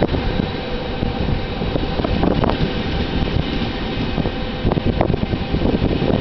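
Double-deck electric passenger train rolling through a station, a steady rumble with wind buffeting the microphone.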